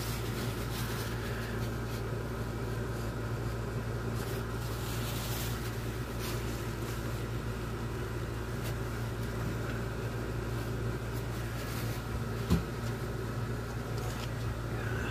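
Steady low hum, with faint rubbing as a paper towel wipes excess wood filler off the cabinet, and a single knock near the end.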